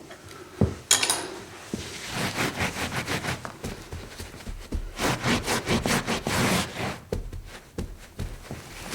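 Wiping up a spill: rapid back-and-forth rubbing strokes on a hard surface, about five a second, coming in runs. A knock and a short clatter sound about a second in.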